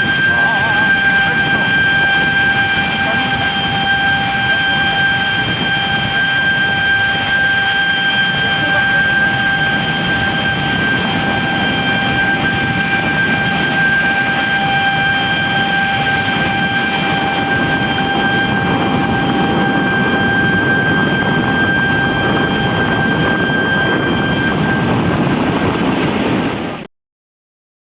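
Steady roar of tsunami floodwater rushing over flood gates, with a continuous high tone held over it; the sound cuts off suddenly near the end.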